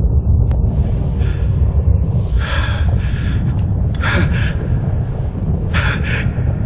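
A man gasping and panting in agony: a fainter breath and then three loud, harsh gasps roughly a second and a half apart, over a steady low rumble.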